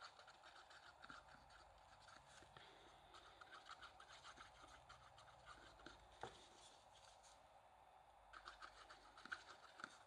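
Faint, quick rubbing strokes of glue being spread onto cardstock, coming in short runs with pauses between them; one small click a little past the middle.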